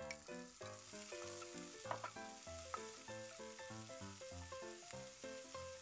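Chopped green vegetables sizzling as they hit hot garlic oil in a non-stick wok and are stirred with a slotted spatula, over background music.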